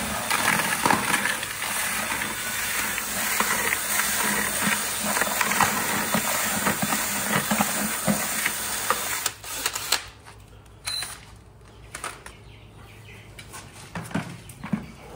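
A mix of dry grains and seeds (sunflower seed, milo, cracked corn, ground soybean) being stirred up, a dense rustling and rattling that stops about nine seconds in, followed by scattered small knocks.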